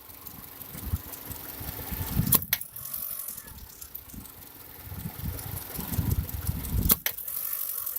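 Car engine blipped hard twice over a low rumble, each time followed by a single sharp knock, about four and a half seconds apart: the knock that comes when the throttle is floored sharply.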